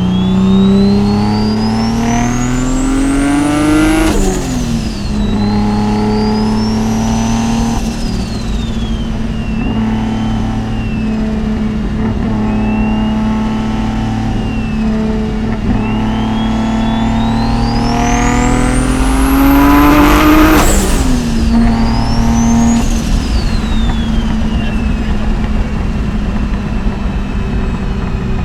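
Mitsubishi 3000GT VR4's big-turbo V6 accelerating hard twice, with a high turbo whistle climbing along with the engine note. The first pull rises for about four seconds and drops sharply at the shift. The engine then cruises steadily until a second, longer pull peaks about twenty seconds in, after which revs fall and the whistle winds down.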